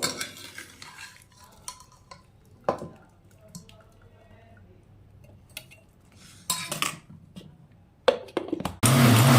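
Kitchen utensils clinking and knocking against pots and dishes, in scattered single strikes. Near the end a small electric motor suddenly starts whirring loudly, with a wavering low hum.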